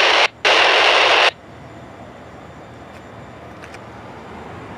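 Scanner radio hissing with loud static that switches on and off abruptly and cuts off a little over a second in, followed by a much quieter steady low rumble.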